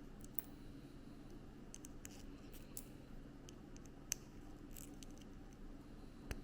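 Small plastic building blocks being handled and pressed together: faint scattered clicks and light rustling, a few sharper clicks standing out, over a low steady hum.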